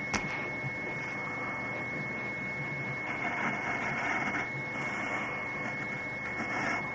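A drawing tool scratching across paper in strokes, swelling and easing as lines are drawn, over a steady high whine, with a sharp click just after the start.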